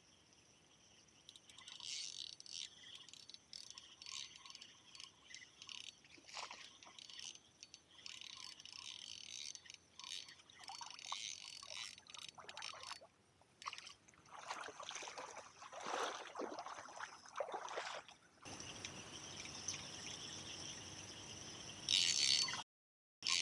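Crickets and other insects chirping in the waterside reeds. About two-thirds of the way through comes a few seconds of water splashing and trickling at the surface. Near the end the sound switches abruptly to a steady insect drone, with a brief drop to silence.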